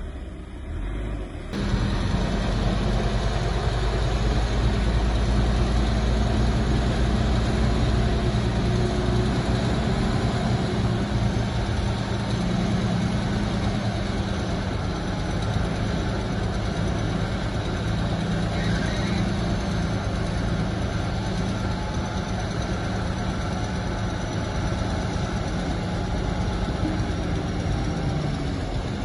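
Heavy diesel engine of earthmoving equipment running steadily with a low, even drone. It cuts in abruptly about a second and a half in.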